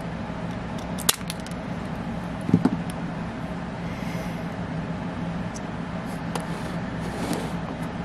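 A steady low hum, with a sharp click about a second in, a short louder knock about two and a half seconds in, and a few light handling noises.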